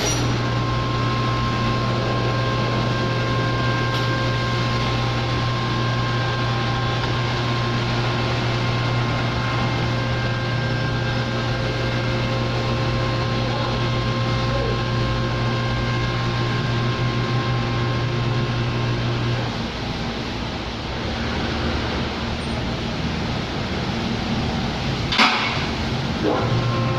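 Honda Accord 3.5-litre V6 engine running at a steady idle hum. About twenty seconds in the steady low tone drops away for several seconds, with one sharp click shortly before the hum comes back.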